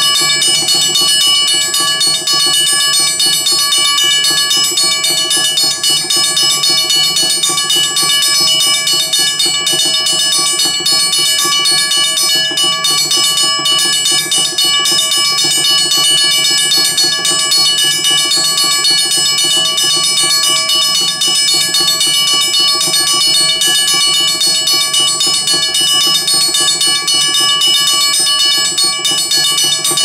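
WABCO BA-10 mechanical railroad crossing bell ringing continuously with rapid strikes, its gong's several tones sounding together and holding steady. The striker is wired to run as fast as its rotary solenoid and contacts can move, much faster than the bell is meant to ring in service.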